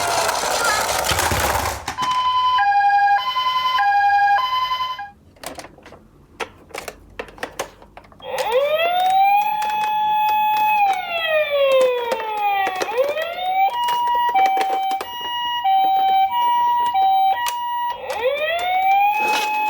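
Ambulance siren sounds. A two-tone hi-lo siren alternates between two pitches, and a wailing siren rises, holds and falls twice. In a short gap between them, about a quarter of the way in, there is a run of light clicks and knocks.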